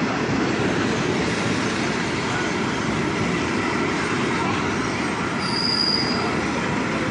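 Cairo Metro Line 2 train running along the platform of an underground station: a steady rumble of wheels on rails, with a brief high squeal about five and a half seconds in.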